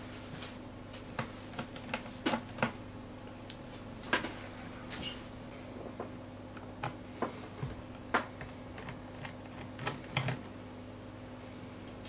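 Scattered light clicks and taps of a screwdriver working small screws out of a plastic laptop bottom case, the loudest about two, four, eight and ten seconds in, over a faint steady hum.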